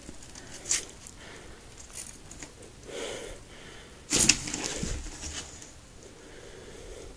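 Red-tailed boa striking a rodent inside a cardboard box: a sudden thump and scuffle against the cardboard about four seconds in, then rustling for about a second as it coils around the prey. A few lighter taps come before it.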